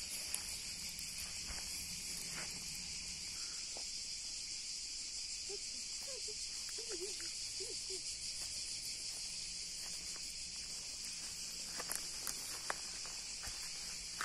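Steady, high-pitched chorus of insects chirring without a break, with a few faint clicks near the end.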